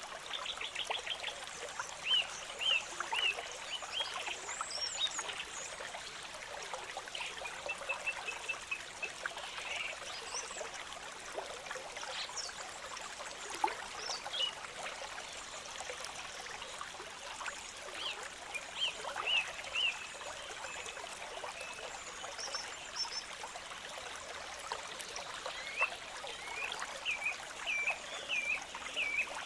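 Small stream trickling and splashing steadily, with several runs of short, high, quickly repeated animal calls over the water.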